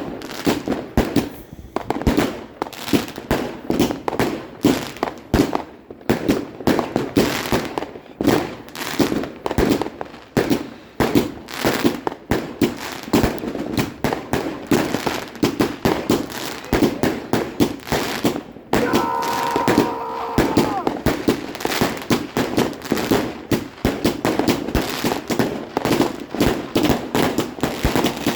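Many fireworks and firecrackers going off at once in a rapid, irregular run of bangs and crackling. About two-thirds of the way through, a steady pitched tone sounds for about two seconds.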